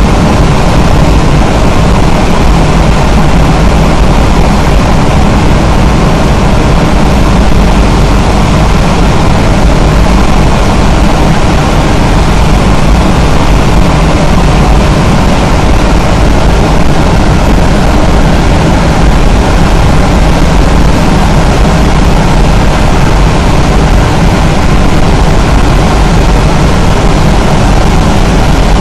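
Steady, loud road and engine noise of a vehicle driving at highway speed through a road tunnel, heard from inside the vehicle.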